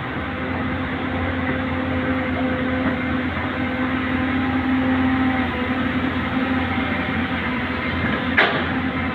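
Diesel engine of heavy earthmoving equipment running steadily with a droning hum, with one sharp knock a little over eight seconds in.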